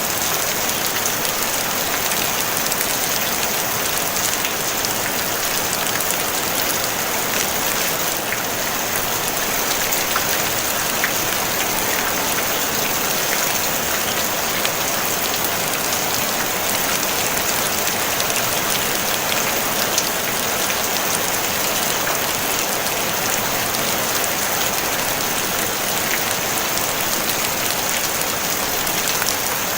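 Steady rain falling on a tin roof, an even hiss dotted with many small drop ticks on the metal.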